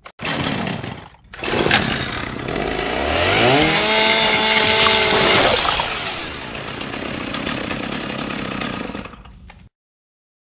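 Chainsaw running and revving. About three seconds in, the engine pitch climbs and holds high for a couple of seconds, then drops back, and the saw runs on until the sound cuts off shortly before the end.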